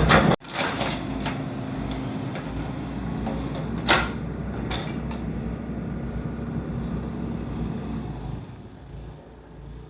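Hydraulic excavator's diesel engine running steadily, with a few sharp knocks and clanks, the loudest about four seconds in. The sound cuts off briefly about half a second in and fades away over the last two seconds.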